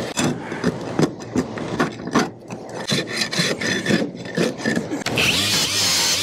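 A scraper blade rasps in quick repeated strokes over a rusted sheet-metal duct seam, stripping off loose old coating. About five seconds in, a cordless angle grinder with a wire cup brush starts and runs steadily against the metal to clean off the rust.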